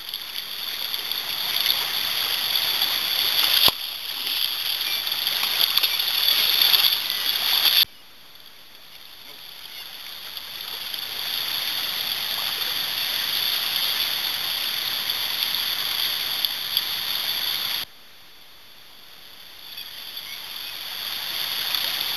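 River water rushing over a riffle, a steady hiss. It drops away abruptly twice, about eight and eighteen seconds in, and swells back up over a couple of seconds each time. A single sharp click comes about four seconds in.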